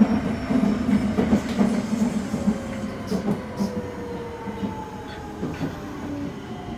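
Nagoya Subway 5050 series train heard from inside the car, its Mitsubishi VVVF traction motor tone falling steadily in pitch as the train slows, over the running rumble with a few sharp clicks of wheels over rail joints.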